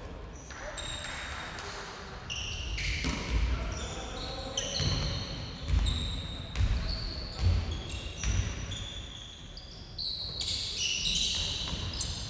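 Basketball being dribbled on a wooden gym floor, a low thud with each bounce, among many short high squeaks of players' sneakers on the floor.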